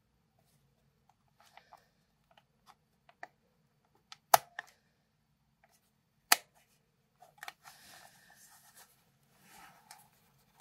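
Plastic body of a Fuji DL 95 compact 35mm film camera being handled: scattered faint clicks, two sharp loud clicks about two seconds apart, then a few seconds of rustling.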